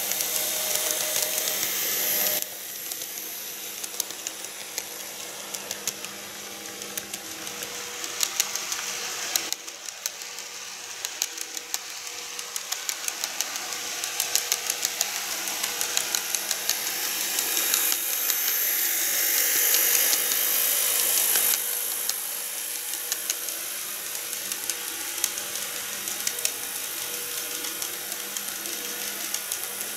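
KATO N-gauge 787 series model train running on its track: a steady whirring hiss from the small electric motor with many light clicks of the wheels over the rail joints. It grows louder as the train comes closer, then drops suddenly about two-thirds of the way through.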